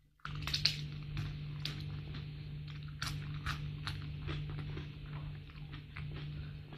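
Close-up crunchy chewing of crisp fried salted fish, with many sharp crackling crunches, densest in the first second, over a steady low hum.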